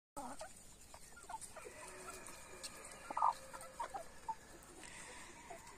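A flock of chickens and pullets clucking softly while foraging, with scattered short calls and one louder call about three seconds in.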